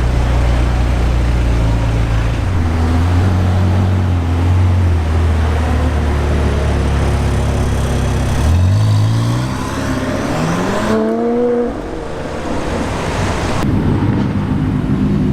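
McLaren 720S twin-turbo V8 engine running at low revs, then revving up in a fast rising pitch about eight and a half seconds in. The sound then drops away suddenly and falls in pitch, and a steady engine note follows.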